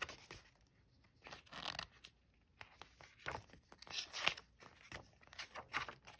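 Pages of a paper booklet being turned and handled, rustling in several short bursts with brief quiet gaps between them.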